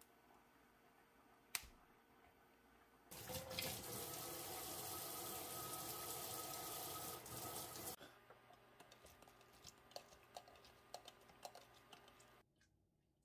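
Kitchen tap running over hands scrubbing a lemon in a stainless steel sink, starting about three seconds in and shut off about five seconds later. A sharp click comes before it, and light clicks and taps follow.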